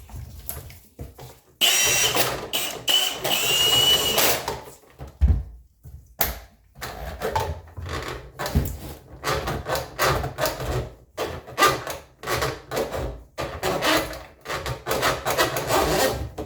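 Scraping and rubbing on a section of sink drain pipe as it is worked to dig out a clog: a dense rushing burst with a thin whistle, then many quick, irregular scraping strokes.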